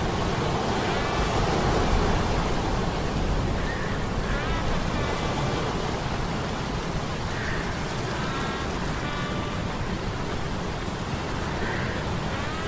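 Sea-storm sound effect: a steady rush of surf and rain, with faint metallic humming tones from gears coming and going every few seconds.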